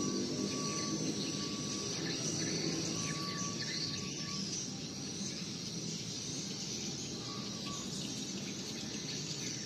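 Steady background ambience: an even hiss with a high, steady drone and a faint whistle-like tone that comes and goes.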